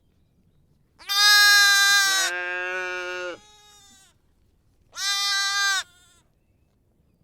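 Lamb bleating twice. About a second in comes a long baa that drops to a lower pitch partway through, and a second and a half later a shorter one.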